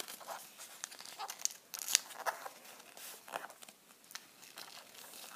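Origami paper being folded and creased by hand: a string of short, scattered crinkles and rustles of the paper.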